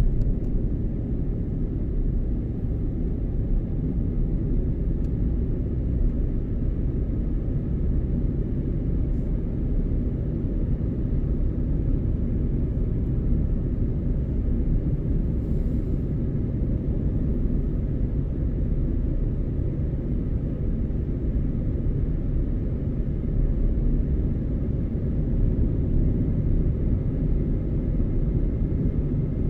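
A car driving at steady speed: a continuous low rumble of engine and road noise that holds even without changes in pitch or level.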